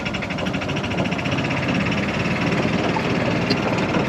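Vehicle engine running steadily with a fast, even pulse as the ride gets under way.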